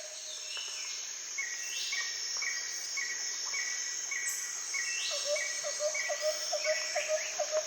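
Evening insect chorus: a steady high drone of crickets or similar insects. Over it, two calling animals give short chirps at about two a second, one high and one lower. The lower caller fades out early and returns about five seconds in.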